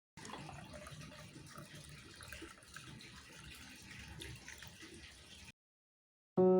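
Faint water running from a tap, cutting off suddenly about five seconds in. Piano music starts right at the end.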